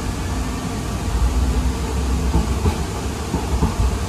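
Siemens LRV4 light-rail car running along the track, heard from inside the passenger cabin: a steady low rumble of the moving car.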